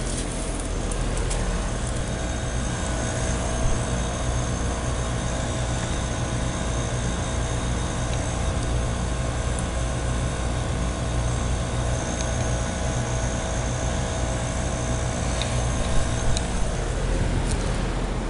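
Heat pump outdoor unit running in heat mode: a steady low compressor hum with the rush of the condenser fan, with a few light clicks about four seconds in and near the end.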